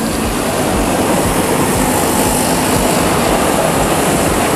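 Several small youth snowmobiles racing around a snowcross track, their engines running together in a steady, mixed drone.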